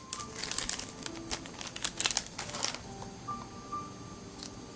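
Small plastic clicks and rattles from handling a compact digital camera, in a quick cluster about two seconds in, with a faint held tone in the background twice.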